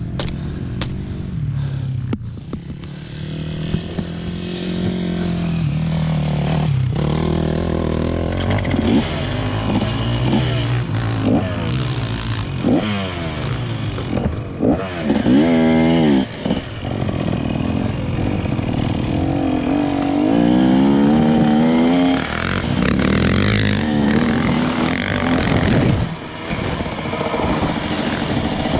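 KTM motocross dirt bike engine being ridden hard, revving up and dropping back repeatedly through shifts and corners. About halfway through comes a quick run of sharp rev spikes.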